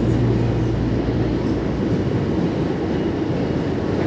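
Electric train running at speed, heard from on board: a steady rumble of wheels on the rails, with a low hum that fades about a second in.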